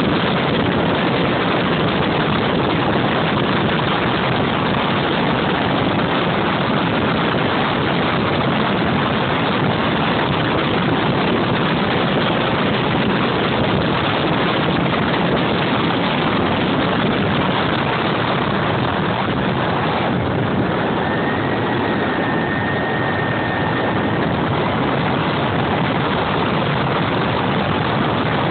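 Turbine engine of a JetMach Sport 60 RC model jet running in flight, heard through the camera strapped to the plane as a loud, steady rush of engine and airflow noise. A faint thin whistle sounds for a few seconds about three-quarters of the way through.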